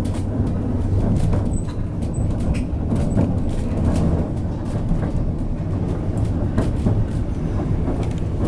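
White Pass railroad train running along the track, heard from aboard: a steady low rumble of the wheels on the rails with frequent small clicks and rattles.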